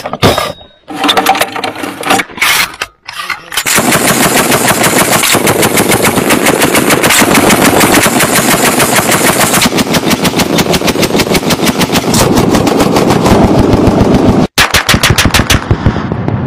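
Heavy machine gun on a tripod firing a long continuous burst of about ten seconds, then, after a brief break, a shorter burst. Before the long burst come a few separate loud clacks and bangs.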